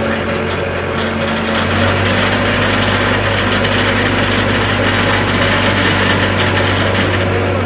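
Stationary Tobu 300 series electric train's onboard auxiliary machinery running with a steady mechanical hum, which grows louder and fuller about one and a half seconds in.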